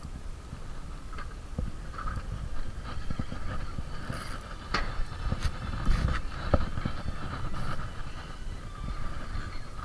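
Wind buffeting the microphone over rough sea, with the whir and clicks of a spinning reel being cranked to reel in a fishing line; a few sharp clicks stand out midway.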